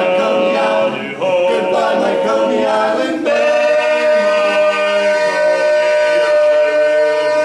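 Male barbershop quartet singing a cappella in close four-part harmony, stepping through a couple of chords and then, about three seconds in, landing on a loud final chord held long to close the song.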